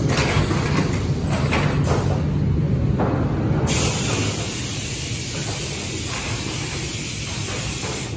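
Fabro oval automatic screen-printing machine running, with a steady low hum and a few knocks in the first three seconds. About three and a half seconds in, a loud high hiss sets in and holds steady.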